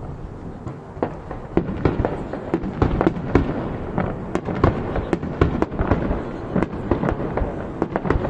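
Aerial fireworks going off in quick succession: a rapid string of sharp bangs and crackles, several a second and denser in the second half, over a continuous low rumble.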